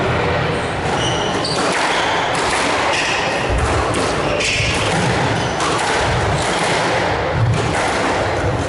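Squash rally: repeated hard strikes of the ball off rackets and walls, with short high shoe squeaks on the wooden court floor.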